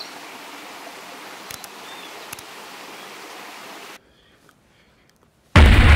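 Steady rush of a mountain stream, with two faint clicks. About four seconds in it cuts off abruptly to near silence, and near the end a sudden loud, deep noise begins.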